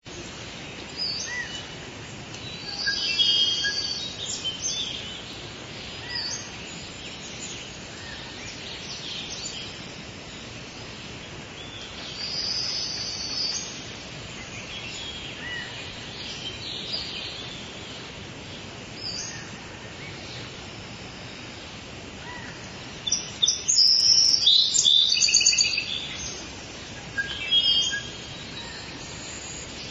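Small songbirds calling and twittering in short, scattered bursts, with the loudest, busiest run about three quarters of the way through, over a steady background hiss.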